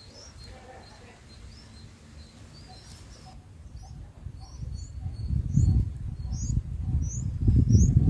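Bulbul nestlings giving short, high, rising begging chirps, repeated about once or twice a second, while an adult feeds them at the nest. From about halfway a low, buffeting rumble builds and becomes the loudest sound.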